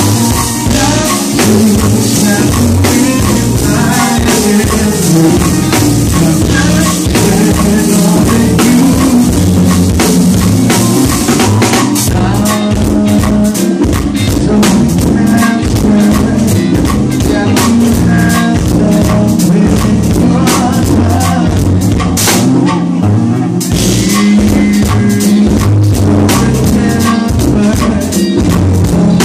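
Live band playing, with the drum kit to the fore. The drumming gets busier about halfway through.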